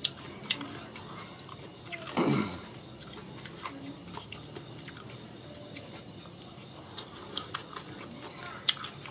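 Metal fork clicking and scraping against a ceramic plate as slices of mango are picked up and eaten, in scattered short clicks. About two seconds in comes a louder, short sound that falls in pitch.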